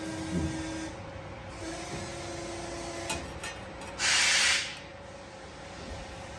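CNC press brake at work bending thin sheet aluminium: a steady machine hum, a short low thud about half a second in, a few light clicks around three seconds, and a loud hiss lasting under a second about four seconds in.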